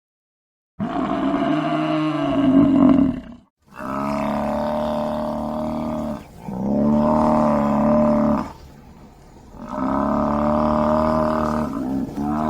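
A buffalo bellowing: a series of long, pitched bellows, each lasting two to three seconds, with short breaks between them. The first one starts about a second in.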